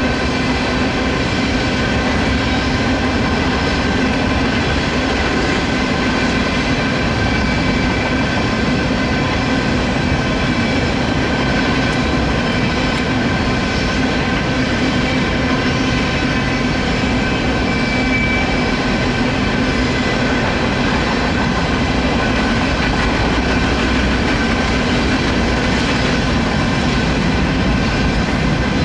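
Freight train of tank cars rolling past: a steady rumble of steel wheels on rail with a few steady high ringing tones over it.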